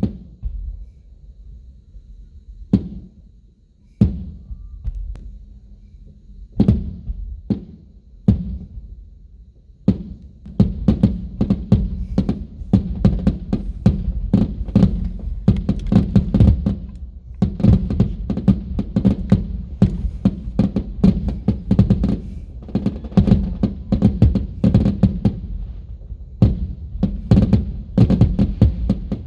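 Aerial fireworks exploding. For about the first ten seconds there are scattered single booms a second or more apart; then the bangs come thick and fast in a rapid barrage, the finale of the fireworks show.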